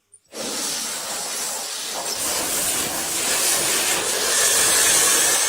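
Compressed-air paint spray gun hissing steadily as it sprays clear coat. It starts abruptly just after the beginning and grows slightly louder toward the end.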